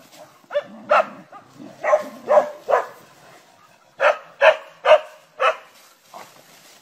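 A dog barking in sharp, repeated barks: five barks over about two seconds, a short pause, then four more in quick succession, before the barking stops about a second before the end.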